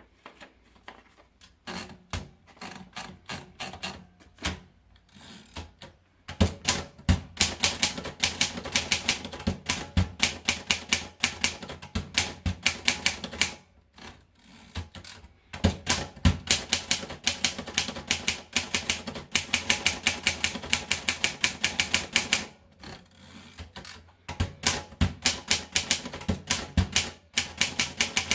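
Triumph Norm 6 manual typewriter being typed on. A few spaced single keystrokes come first, then fast runs of key strikes in three stretches, with two brief pauses between them.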